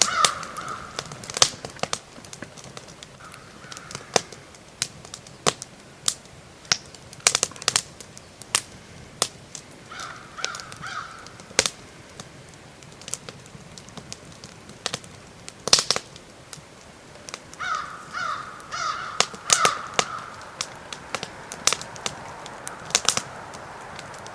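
Small stick fire crackling, with irregular sharp snaps and pops of burning twigs. A crow caws several times in short runs.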